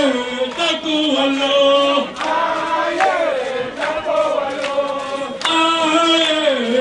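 Voices chanting a short sung phrase with long held notes, repeated over and over.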